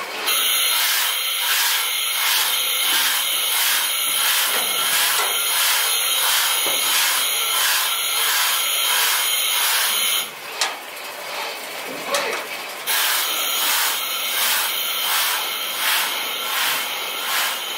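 A steady mechanical hiss that pulses about one and a half times a second. It cuts out for a couple of seconds just after ten seconds in, with a single knock, then starts again.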